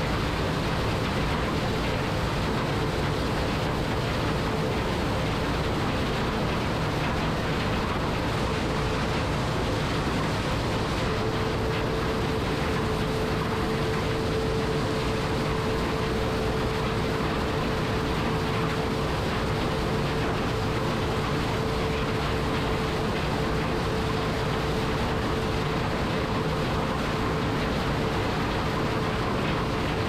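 New Holland CR9060 combine harvester running steadily while harvesting corn: a continuous machine noise with a steady whine that grows stronger about a third of the way in.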